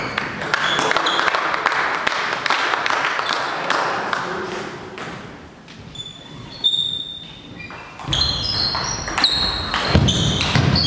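Table tennis ball clicking back and forth off bats and table during rallies, with short high squeaks in between, echoing in a large sports hall. The clicks are dense at first, thin out around the middle, and pick up again near the end as a new rally starts.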